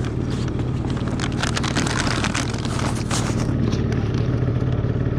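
A motorbike engine idling steadily, with rustling and clicks as the insulated delivery bag on the back is handled and opened.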